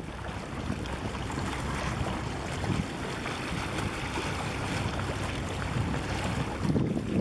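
Steady wash of wind and harbour water, with a gust of wind buffeting the microphone near the end.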